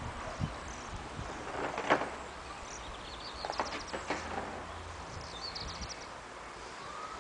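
Outdoor garden ambience with small birds chirping in short, rapid high trills, broken by a few sharp clicks, the loudest about two seconds in. A faint steady whine comes in near the end.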